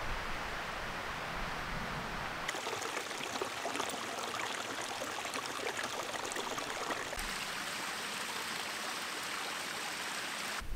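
Small hillside stream running over stones, a steady rush and trickle of water.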